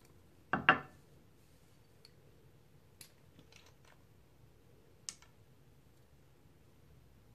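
Small glass oil bottles and their plastic screw caps being handled on a countertop: one loud knock about half a second in, then a few light clicks, with a sharper click about five seconds in as a cap comes off.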